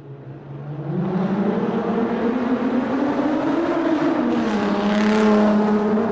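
Car engine driving through a tunnel, building in level and pitch over the first second or so as it accelerates, easing slightly about four seconds in, then running steadily, with road and air noise beneath.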